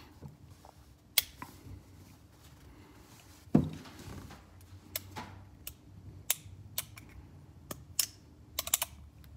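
First-generation Colt Single Action Army .45 revolver being handled with its hammer worked, giving a series of sharp metallic clicks, several in quick succession near the end. One louder knock comes about three and a half seconds in.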